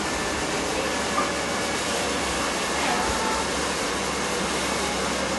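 Steady rustling hiss of a cat's fur and face brushing and pressing against the camera microphone, with a couple of faint short tones about a second and three seconds in.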